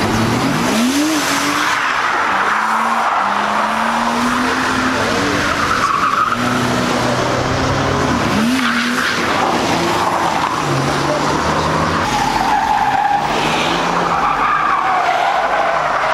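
A BMW 3 Series saloon drifting round a roundabout: its engine revs hard, sweeping up in pitch near the start and again about eight seconds in, while the rear tyres squeal as they spin and slide.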